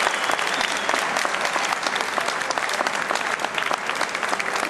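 Audience applauding, many hands clapping steadily as the dance music ends.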